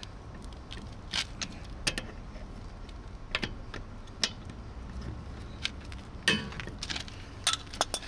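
Metal tools clinking and knocking as a socket on a long wrench is fitted to and worked on a wheel locking bolt: scattered sharp clicks, the loudest a little over six seconds in.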